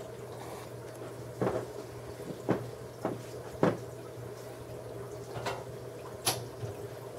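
Steady hum of running aquarium equipment with faint water movement, broken by about six short, sharp clicks or knocks, most of them in the middle of the stretch.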